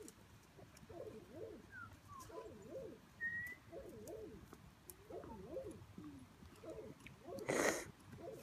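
Doves cooing over and over in low, soft phrases, with a couple of brief high bird chirps. About seven and a half seconds in comes a short, loud hiss.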